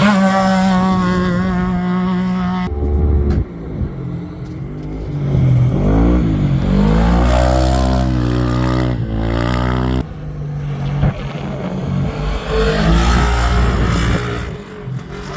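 Off-road race vehicle engines running hard: a steady high engine note for the first few seconds, then engines revving up and back down a few seconds later.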